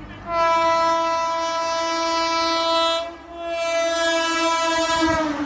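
Indian Railways electric locomotive horn on a fast-approaching express train: two long blasts, the second dropping in pitch just before it stops as the locomotive rushes past.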